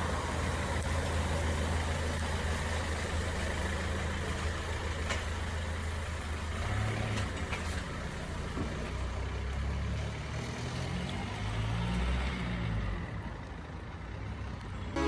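Motor vehicle engine running, a low steady hum whose pitch wavers up and down in the second half.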